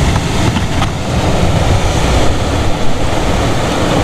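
Loud, steady wind noise buffeting the microphone, mixed with sea surf washing over the rocks.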